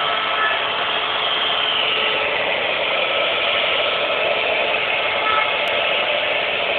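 Machine tool running steadily with an even whirring hiss and faint steady tones, machining a sphere.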